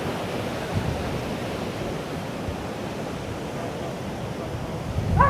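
Sea surf on a rough, wavy day: a steady rushing wash of waves breaking on the beach. A short pitched sound cuts in near the end.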